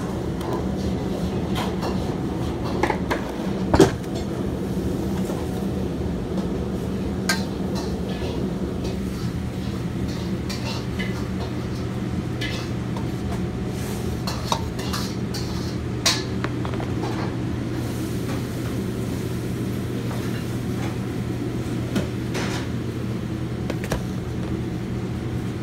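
Steady low hum of kitchen equipment. Scattered knocks and light clinks come from dough being rolled out and shaped on a plastic cutting board, and a lower tone joins the hum about ten seconds in.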